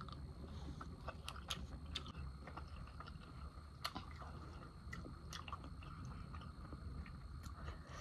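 Close-up mouth sounds of someone chewing spicy ramen noodles: scattered soft wet clicks and smacks over a steady low rumble of wind on the microphone.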